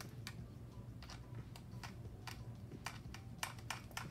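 Sharp little clicks of the PEEP relief valve being screwed onto the fitting of an AutoVent 3000 ventilator, a few scattered at first and then coming faster, a few a second, near the end.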